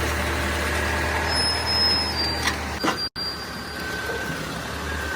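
Heavy diesel engine running steadily with a low hum, broken by a brief cut about three seconds in, after which a similar engine sound carries on.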